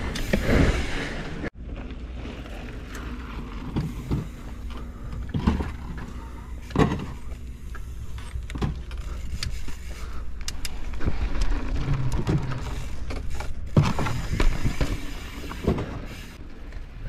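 Mountain bike ridden over a rough trail: a steady low rumble with scattered knocks and rattles from the bike. A louder stretch cuts off sharply about a second and a half in.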